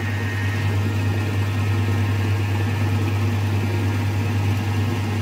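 Metalworking lathe running steadily with a strong, even low hum, set up to turn the taper on the tread of a steel locomotive driving wheel.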